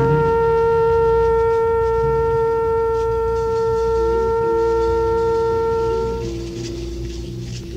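Trumpet holding one long, steady note for about six seconds in a slow jazz ballad, over quieter band accompaniment with light cymbal. The note ends near the end while the lower accompanying notes carry on.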